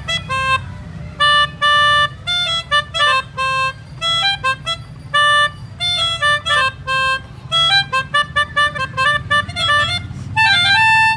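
Pianikas (melodicas) playing a quick telolet bus-horn tune: short reedy notes stepping up and down, with a few longer held notes and one long held note near the end. A steady low rumble runs underneath.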